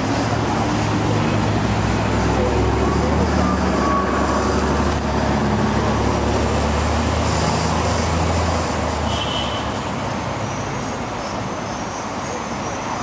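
City street traffic with a heavy vehicle's low engine drone. The drone holds steady for several seconds, then fades about nine seconds in.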